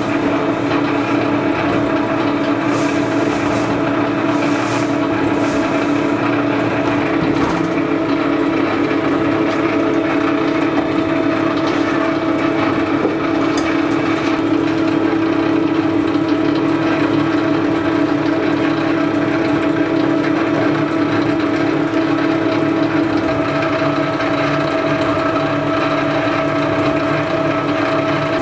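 Electric rice-flour mill running loud and steady, its motor humming as it grinds soaked rice into flour.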